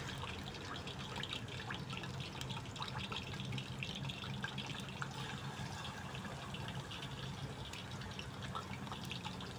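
Chicken pieces frying in a pan of hot oil, sizzling steadily with many small irregular pops and crackles.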